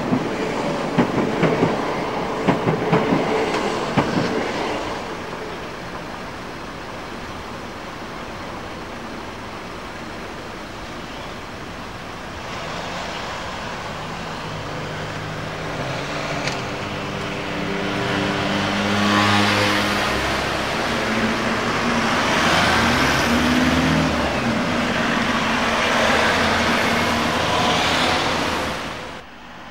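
Electric passenger train passing over a level crossing, its wheels clicking over the rail joints for the first few seconds. After it has gone, cars start up and drive across the crossing, and their engine noise builds and shifts through the second half.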